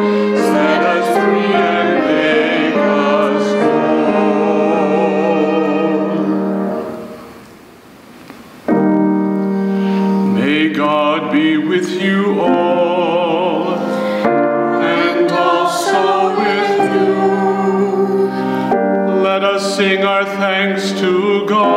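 Sung evening-prayer liturgy with piano accompaniment. About seven seconds in the music fades out, then after a short dip a new passage starts abruptly, with a man singing over the piano.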